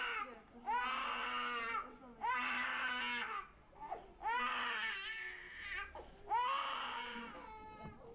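Young child crying hard: a run of loud wails about a second long each, with a short gasp between, while an IV cannula is being taped into the hand.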